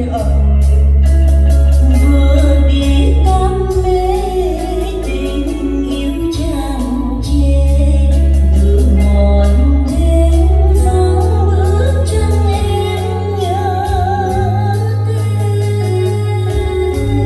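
A song with a singing voice and heavy deep bass, played back through a stage PA of line-array speakers with a pair of dual-driver subwoofers. It is a demonstration of the system's sound.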